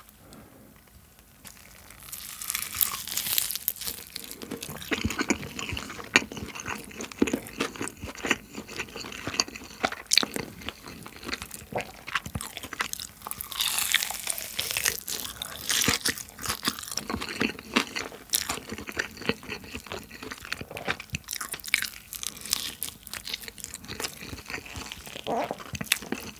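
Close-miked eating of BHC rosé-sauce fried chicken topped with melted jelly: crunchy bites and chewing, dense and irregular from about two seconds in.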